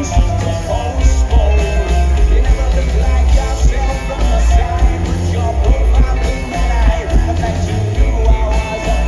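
Rock band playing live at full volume: drums keeping a steady beat under heavy bass and electric guitars.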